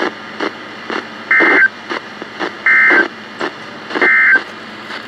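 NOAA Weather Radio SAME end-of-message data bursts: three short, two-tone digital bursts about 1.4 seconds apart, marking the end of a severe thunderstorm warning. Under them is steady radio hiss with faint, regular ticks.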